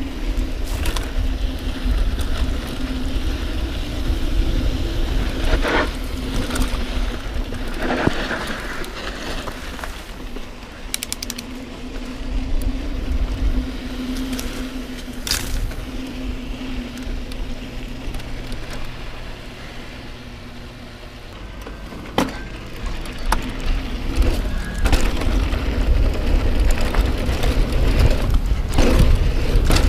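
Mountain bike in motion, with wind buffeting the helmet- or bike-mounted action camera's microphone as a steady low rumble. Tyres and frame rattle over the trail, with a steady hum and scattered sharp knocks and clatters.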